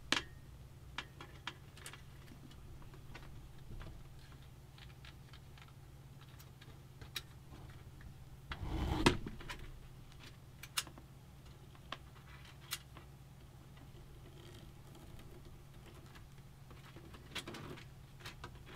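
Scattered light clicks and taps of cables and plastic parts being handled inside a computer case while the wiring is bundled, over a steady low hum. A louder rustle and bump about nine seconds in.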